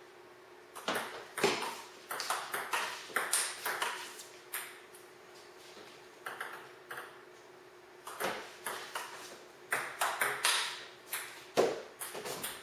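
Table tennis rally: the celluloid ball clicking off rubber paddles and bouncing on the tabletop in quick sharp pings about twice a second. There are two runs of hits, with a lull in the middle that has only a few light taps.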